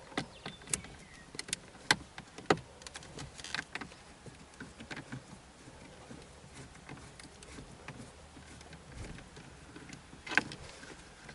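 A few light clicks and taps of a small 9/32 socket and driver working at the screws of a car's dashboard stereo trim. Most come in the first few seconds and a sharper one comes about ten seconds in.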